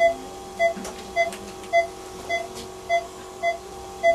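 Veterinary patient monitor beeping in time with a sedated dog's pulse: eight short, even electronic beeps, a little under two a second, over a faint steady hum.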